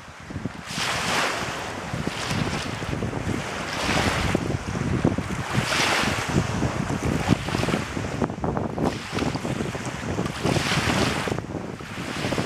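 Strong wind buffeting the microphone in a continuous low rumble, with choppy lake waves washing in repeated swells of hiss every second or two.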